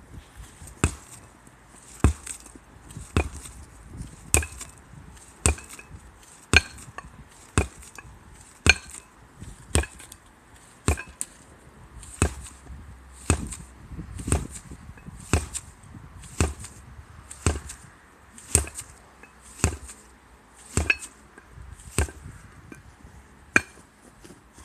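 Sledgehammer, weighted with an Olympic plate, striking a large tire again and again, about one heavy whack a second, roughly twenty strikes in all.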